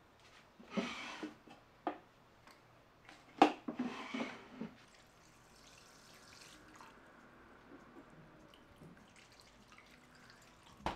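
Water splashing in two short spurts, with a few light clicks and knocks between, typical of kitchen washing or pouring.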